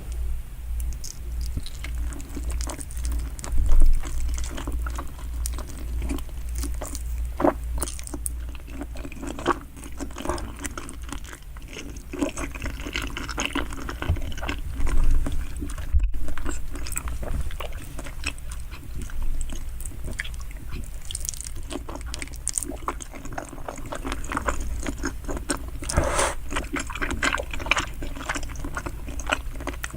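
Close-miked chewing and biting of salmon sushi, with irregular mouth clicks throughout and a steady low hum underneath.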